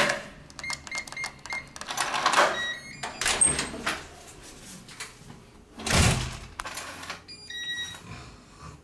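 Digital keypad door lock being opened: a run of short beeps as a code is punched in, then the lock's stepped electronic chime as it unlocks. A loud clunk of the door comes about six seconds in, and another short chime sounds near the end.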